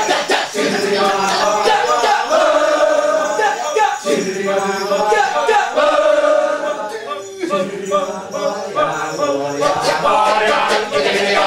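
Kecak chant: a large all-male chorus chanting and singing a cappella, with many voices overlapping.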